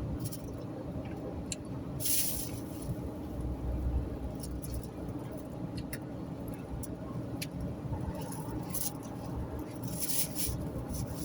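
Car driving on a highway, heard inside the cabin: a steady low rumble of engine and tyre noise, with a few scattered small clicks and brief hissy swells around two seconds in and near the end.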